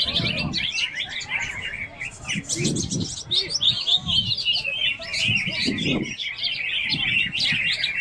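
Many caged songbirds singing at once, a dense, unbroken chorus of high chirps and trills, with people's voices murmuring underneath.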